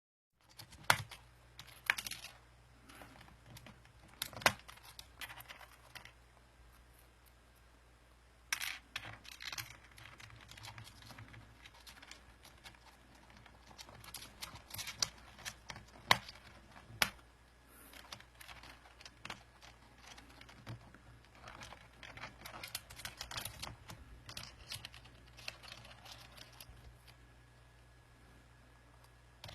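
A black-headed caique chick pecking and prying at a computer keyboard, its keys clicking and clacking irregularly, with a few sharp louder clacks among them.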